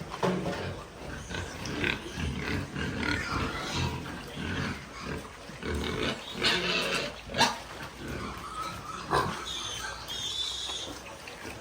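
Pigs grunting over and over in short, irregular calls, with a few higher-pitched squeals near the end.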